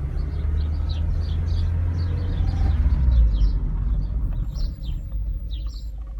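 Car engine running with a steady low rumble that eases off towards the end, while birds chirp.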